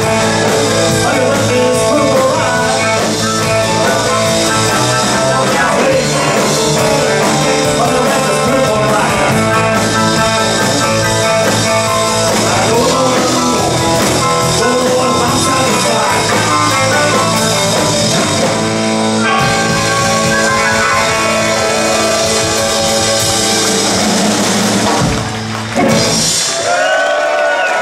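Live blues-rock band playing: electric guitar over a drum kit and keyboard, loud and steady. Near the end the band stops on a final hit, and cheering and applause begin.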